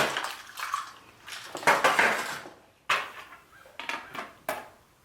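Small hard objects clinking and clattering on a countertop: a handful of separate knocks and clicks, with a longer scrape about two seconds in, as makeup items are put down and tools picked up.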